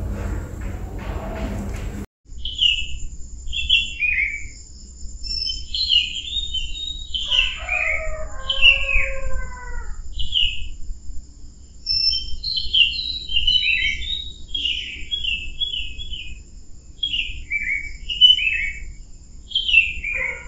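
Birds chirping and calling in a run of short, repeated chirps and slurred notes, with a thin steady high tone behind them. They start after an abrupt cut about two seconds in.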